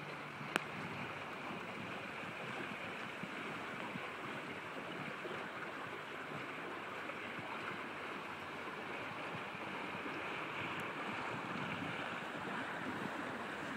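Steady rush of water along the hulls of an Astus 20.2 trimaran under sail, with wind in the background; a single sharp click about half a second in.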